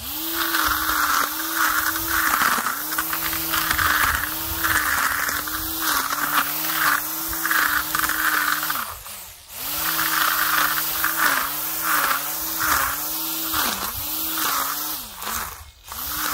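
Homemade cable-tie weed whacker, a brushed motor on two cells at 8 volts spinning zip-tie blades, running with a steady whine that sags in pitch again and again as the ties bite into grass, with bursts of rasping from the ties hitting the grass. Twice, about nine seconds in and near the end, the motor runs down with a falling pitch and then speeds up again.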